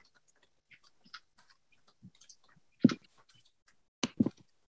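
Scattered small clicks and taps, with a louder knock nearly three seconds in and two more just after four seconds.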